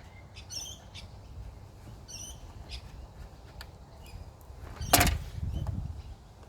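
Workbench handling noise during disassembly: a loud sharp knock with a short ring about five seconds in, followed by a brief low clatter, as a tool or part is put down or moved. Faint high chirps come twice early on.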